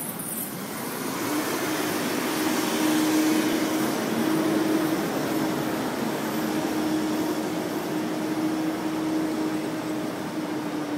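UPS delivery truck running past, its engine and road noise swelling over the first few seconds and easing off near the end, with a steady hum held from about a second in.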